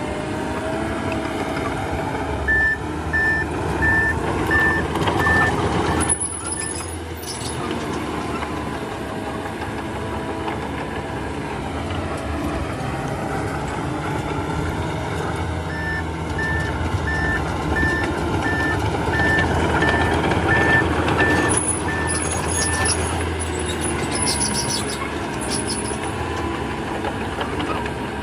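Reversing alarm beeping about twice a second in two runs, one a few seconds long near the start and a longer one in the middle, over the steady running of a heavy machine's engine.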